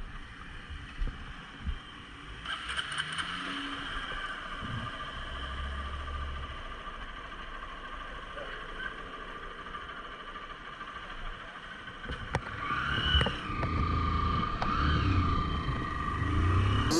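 Motorcycle being ridden: engine running under steady road and wind noise, revving up and easing off twice near the end.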